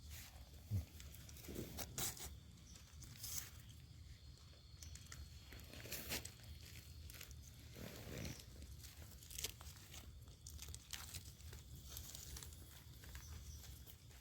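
Irregular rustling and crackling of dry forest-floor leaf litter and twigs, with a few louder snaps among the faint crackles.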